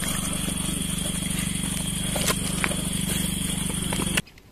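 Steady mechanical hum of a running motor, which cuts off suddenly near the end.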